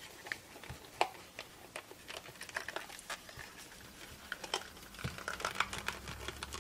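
Hands prying and twisting the tight cover of a plastic digital multimeter: scattered small clicks and plastic creaks, with a sharper click about a second in and quicker ticking near the end.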